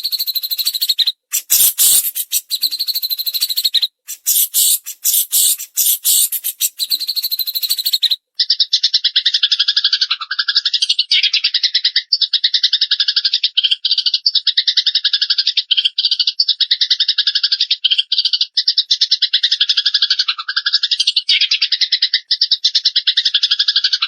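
Recorded songbird song: for about eight seconds a harsh, very rapid high chattering, then an abrupt switch to a continuous, dense, fast rattling trill. This is a training recording of fighting Eurasian tree sparrow and cililin song.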